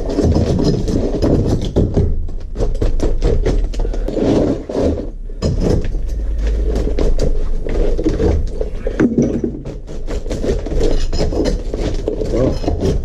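Demolition noise from breaking out a shower curb: many irregular sharp knocks, with scraping and rattling of loosened material.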